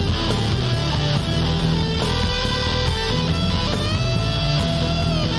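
Instrumental blues-rock background music led by a guitar, with sustained lead notes bending in pitch, most clearly about four seconds in.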